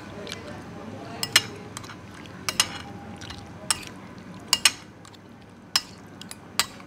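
Metal spoon and fork clinking and scraping against a ceramic plate while stirring rice into soto broth. There are sharp clinks about every second, some in quick pairs.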